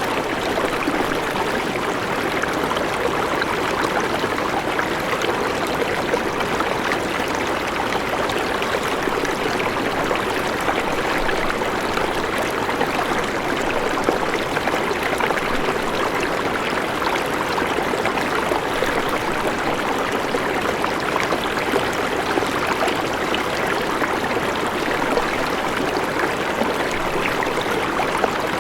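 River water running over rocks in a steady, even rush with a fine trickling texture.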